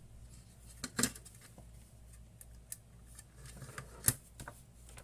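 Scattered sharp clicks and taps of small hard parts and tools being handled on a workbench, the loudest about four seconds in, over a faint steady low hum.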